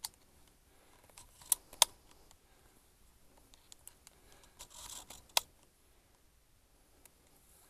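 A few sharp clicks close to the microphone, two in quick succession about a second and a half in, the louder one just after, and another a little past five seconds, with a short rustle just before it: handling noise.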